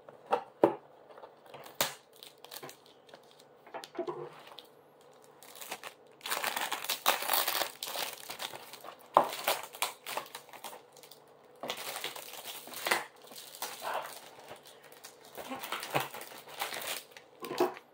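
Cardboard tea box being cut and pried open at a side flap with a knife: scattered clicks and several bouts of crinkling and tearing, the longest about six and twelve seconds in.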